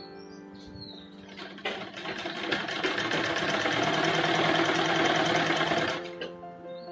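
Black domestic sewing machine stitching a cotton mask strap: a fast, even clatter of stitches that starts about a second and a half in, runs for about four seconds and stops sharply.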